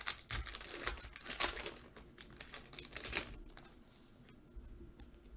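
Foil trading-card pack wrapper crinkling and tearing while cards are handled, a quick run of crackles for about three seconds, then only faint handling clicks.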